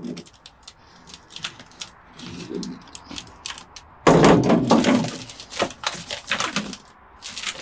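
Handling noise from a sheet of foil-backed butyl sound-deadening mat being moved and marked on a truck cab floor: scattered clicks and rustles, with a loud crinkling thunk about four seconds in.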